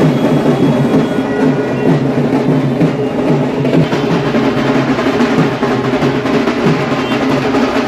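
Loud drumming, continuous throughout.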